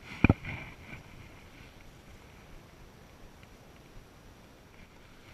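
Two quick handling knocks close together about a quarter second in, from a gloved hand and hive tool working close to the body-worn camera, then a low steady background.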